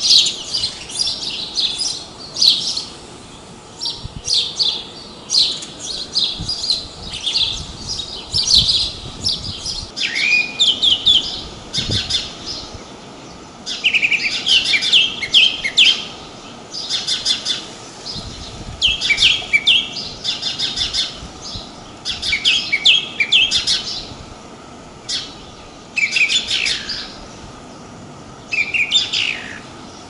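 Male house sparrow chirping: runs of short, sharp chirps in clusters a second or two long, repeated with brief pauses.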